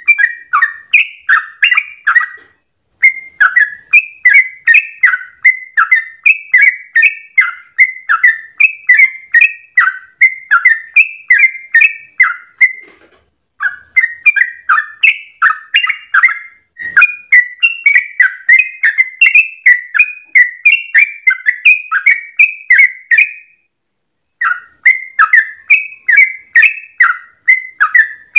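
Yellow-vented bulbul (trucukan) singing its long rapid 'ropel' song: a fast, continuous run of short bubbly notes, three to four a second, broken by a few brief pauses.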